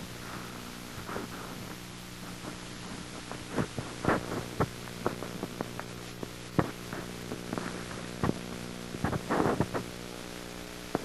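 A steady low electrical hum, with scattered irregular clicks and pops, denser around a third of the way in and again near the end.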